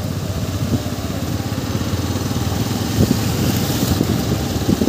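Motorcycle running at riding speed along a wet, flooded street: a steady low engine and road rumble with an even hiss of tyres on the wet road, the hiss a little brighter near the end.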